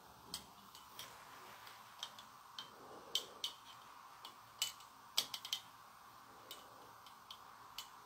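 Faint, irregular small clicks, about twenty scattered unevenly across the few seconds, over a low steady hiss.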